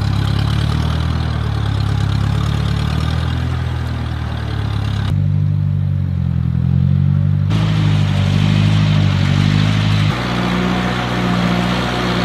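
Massey Ferguson 35 tractor engine running steadily under load while plowing sod. Its pitch changes abruptly a few times.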